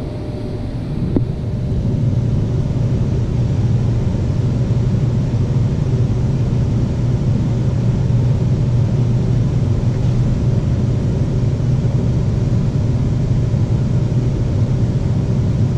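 Lennox air-conditioner condensing unit with its scroll compressor running with a steady hum, freed from a locked-up state and now running normally at about 9 amps. A small knock about a second in.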